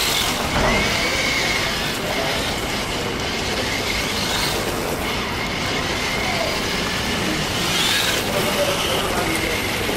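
Electric motor of a 1:10 HSP Flying Fish RC drift car whining up and down in pitch as it is throttled and slid across hard tiles, the whine rising and falling a few times, most strongly about eight seconds in.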